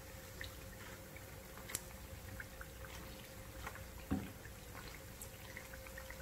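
Corn fritters deep-frying in a pan of hot oil: a faint sizzle with scattered small crackles and pops. A plastic slotted spatula knocks once against the pan about four seconds in.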